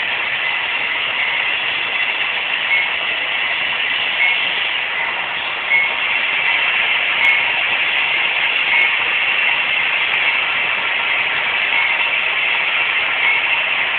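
Model train running on the layout's track: a steady rolling and motor hum, with light regular ticks every second or two.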